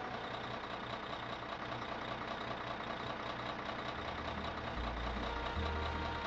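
Cartoon sound effect of a dump truck's engine running steadily as the truck drives away.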